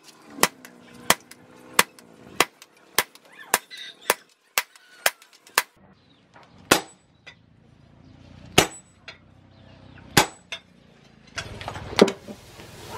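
Hammer blows on a chisel cutting a steel leaf spring on an anvil: a steady run of sharp metallic strikes about every 0.6 s, then slower single clanging blows a couple of seconds apart, some ringing on. Near the end a steady rush of water poured onto the steel starts under the last blows.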